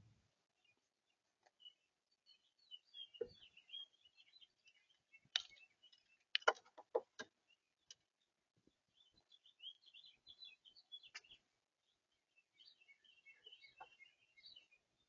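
Small songbirds chirping and twittering in quick high bursts, in three spells. A run of sharp knocks and clicks, loudest a little over six seconds in, with a few single ones later.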